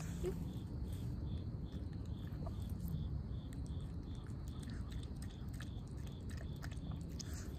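Shih Tzu eating from its dish: quick, irregular crunchy chewing clicks.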